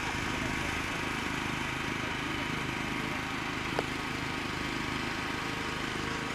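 The Wemotec 90 mm electric ducted fan of a Sebart Mini Avanti RC jet running steadily as the model flies overhead. A single sharp click comes just under four seconds in.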